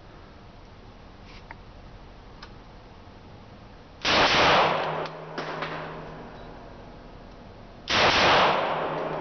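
Two shots from a Glock 23 in .40 S&W, about four seconds apart, each ringing on for about a second of echo. A few light clicks follow the first shot.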